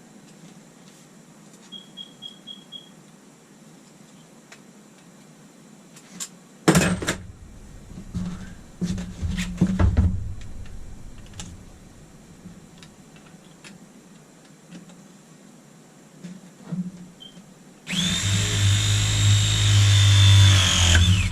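Battery-powered Ridgid press tool with PEX jaws running a press cycle on a fitting: a steady motor whine starts suddenly about three-quarters of the way through, and a high tone drops in pitch near the end. Earlier there is a quick run of five short high beeps, then clattering as fittings and tools are handled.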